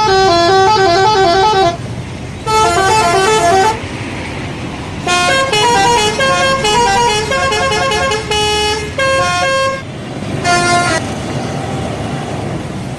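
Bus telolet horn, a multi-tone horn playing quick stepping melodic phrases in four bursts, the longest in the middle, with steady background noise in the pauses.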